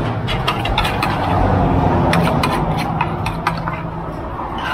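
Metal spoon scraping and knocking against a clay mortar and plate as pounded papaya salad is scooped out: a run of quick clicks in the first second, then another run about two seconds in. A steady low hum runs underneath.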